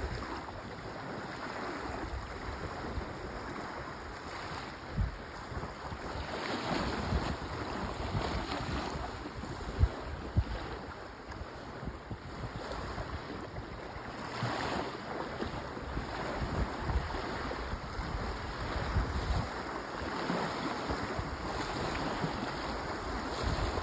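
Small waves lapping and washing onto a sandy beach, a steady rush of surf that swells and eases. A couple of brief low thumps come from wind on the microphone.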